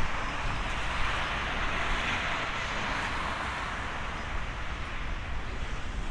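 Jet noise from an Airbus A350-900's Rolls-Royce Trent XWB engines as the airliner climbs away after takeoff: a steady rushing sound that slowly fades.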